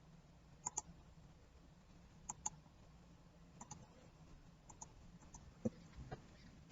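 Quiet clicks of a computer mouse, mostly in quick pairs, about six times over a few seconds, over a faint low hum.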